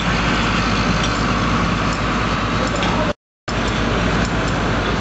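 Heavy engine running steadily, typical of a fire truck at a fire scene, with a strong low hum and small scattered clicks. The sound cuts out completely for a moment a little after three seconds in.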